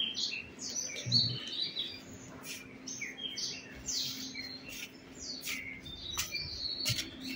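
Several small birds chirping and twittering in quick, overlapping calls.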